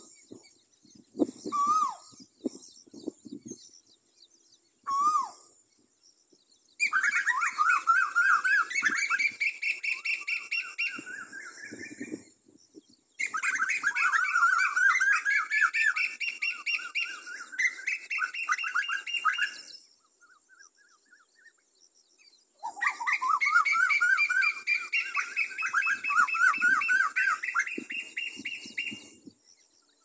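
Asian koel calling: a few short single notes near the start, then three long bouts of rapid, repeated shrill notes, each lasting about five to seven seconds.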